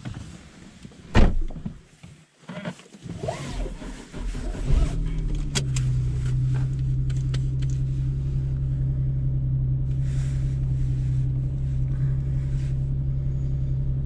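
Nissan 370Z's 3.7-litre V6 starting about five seconds in and settling into a steady idle. Before that there is a single sharp thump about a second in.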